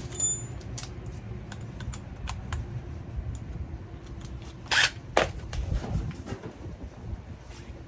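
Scattered clicks and knocks of dryer parts and panels being handled, over a low background rumble, with two sharper clicks about five seconds in.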